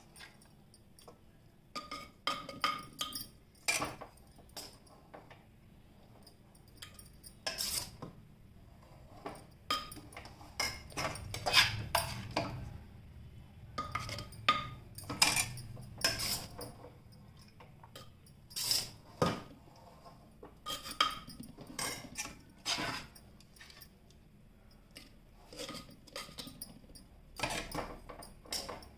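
Steel spoon clinking and scraping against an earthenware pot as rice and masala are spooned into it in layers: irregular, scattered clinks and scrapes with short pauses between them.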